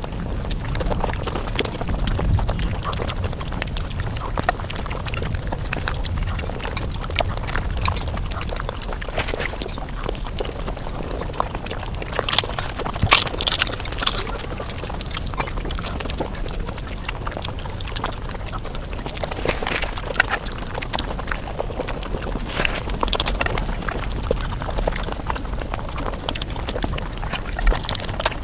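Eating sounds played back at five times speed: a dense, continuous run of chewing, smacking and crunching, with several louder sharp crunches about halfway through.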